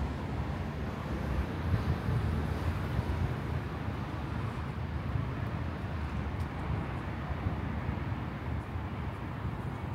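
Steady low rumbling outdoor ambience with no distinct events.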